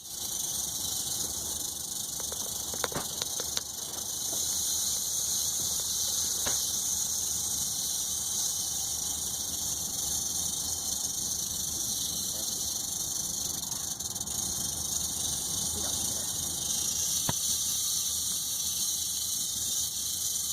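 Rattlesnake rattling its tail in a steady, continuous high buzz, the snake's warning signal when it feels threatened. A few faint knocks sound over it, the clearest about three seconds in.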